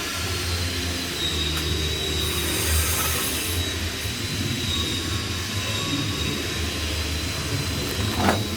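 Flux-cored arc welding on pipe: a steady crackling, frying arc over a low welder hum, brightening for a moment about three seconds in, with a short sharp knock near the end.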